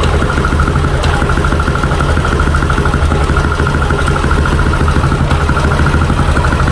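Yamaha Aerox 155 scooter's single-cylinder engine idling steadily.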